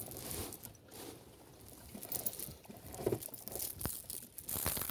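Footsteps crunching and rustling on the ground in an irregular run of small clicks and scrapes.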